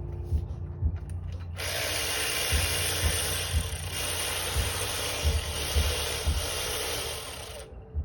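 A power tool runs steadily for about six seconds, starting suddenly about a second and a half in and cutting off near the end.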